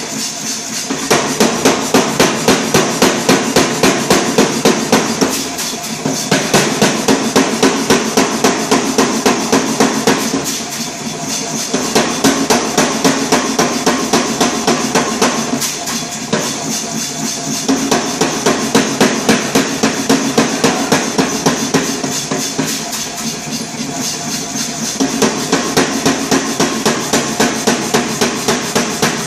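100 lb Reiter air hammer striking a hot bar of 1045 steel in rapid, evenly spaced blows, about four a second, in runs of several seconds with short pauses between them.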